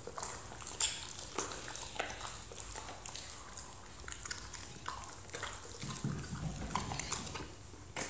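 A Rottweiler chewing a pig snout treat: a run of irregular sharp crunches and clicks, with a brief low noise about six seconds in.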